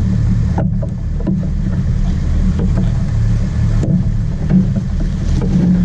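Sport-fishing charter boat's engine running steadily, a loud, even low drone, with a few faint knocks over it.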